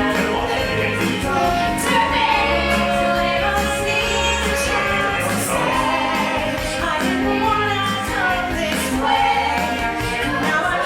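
Music: a song with singing voices over instrumental backing, the voices holding and sliding between notes above a steady bass line.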